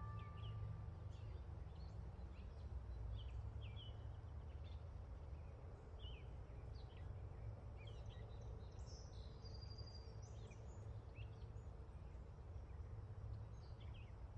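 Small birds chirping in short, scattered calls, with a quick trill a little past the middle, over a low steady rumble.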